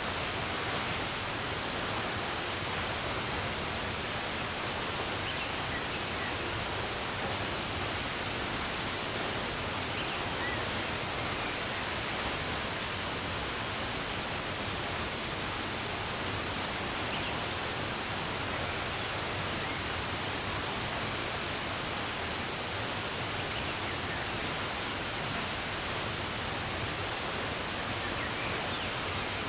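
Steady rushing of running water, with a few faint, brief bird chirps now and then.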